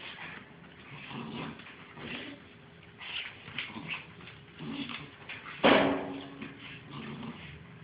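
Two bull terrier puppies play-fighting: small whimpers and yips among scuffling on the floor, with one louder sudden sound about two-thirds of the way through.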